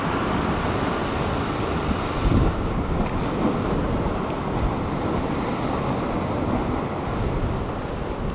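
Steady wash of surf on a sandstone rock shelf, with wind buffeting the microphone and a heavier buffet about two seconds in.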